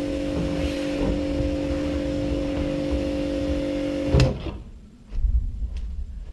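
Electric pressure washer running, its motor and pump humming steadily under the hiss of the jet spraying the plastic wall of an IBC tank. About four seconds in the trigger is let go and the machine cuts off suddenly, leaving a few low thuds and faint clicks.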